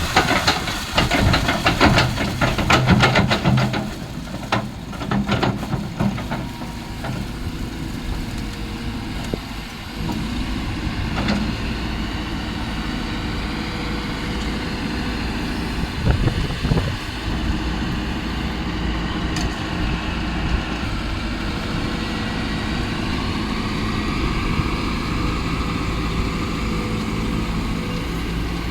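Kobelco excavator's diesel engine running steadily, with a burst of clattering and knocks in the first few seconds and a few single clanks later.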